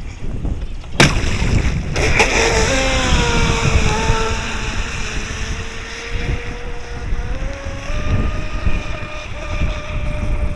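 Electric motor of a Pursuit RC speedboat whining as the boat runs fast across the water, its pitch dipping and then stepping up near the end, with wind rumbling on the microphone. A sharp knock about a second in.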